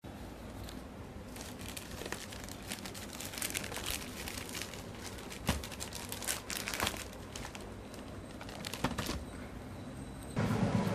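Plastic courier mailer bag crinkling and crackling as it is handled and turned over, with a few sharper crackles, growing louder near the end.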